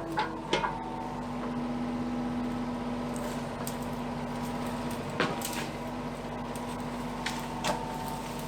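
An engine running steadily, with a few sharp clanks: one about half a second in, one about five seconds in and one near the end.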